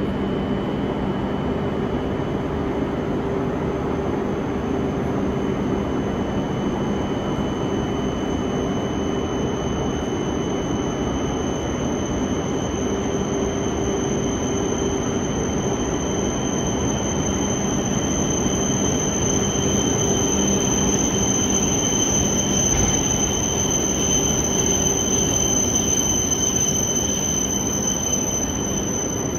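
E5 series Shinkansen train coming into the station: a steady rumble with a high-pitched whine, both growing louder over the last ten seconds as the train draws alongside.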